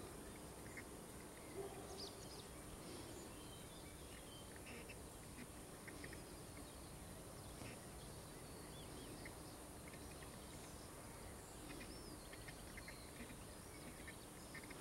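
Faint early-morning field ambience: scattered short bird chirps and calls over a steady hiss, with a brief lower call near the start.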